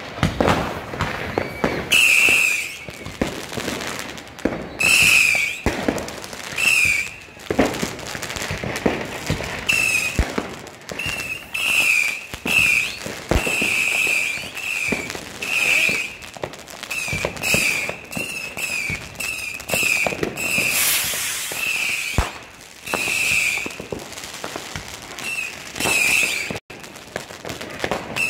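New Year's Eve street fireworks: rockets and firecrackers going off one after another, with sharp bangs and crackling throughout. Short high-pitched whistles repeat many times over the bangs, about once a second in the second half.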